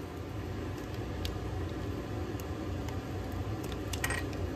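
Steady low background hum with a few faint metallic clicks as a hand handles the fittings and wiring bracket under the tractor. The loudest is a short clink about four seconds in.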